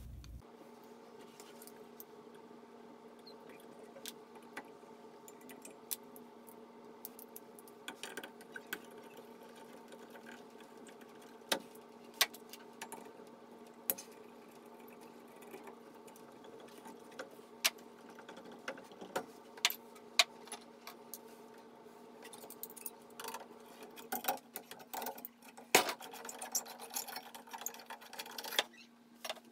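Scattered metal clicks and taps of faucet parts and tools being handled, over a steady hum. The clicks come thicker near the end.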